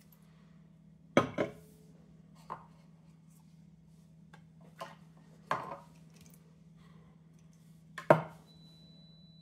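Objects being handled and set down on a table, with cans and a plastic cup among them: about half a dozen short knocks and clunks. The loudest come about a second in and near the end. A steady low hum runs underneath.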